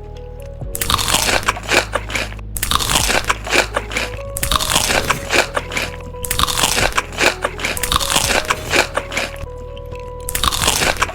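Loud, close-miked crunching of crisp food being chewed, in repeated bursts of a second or two with short pauses between. Soft background music plays underneath.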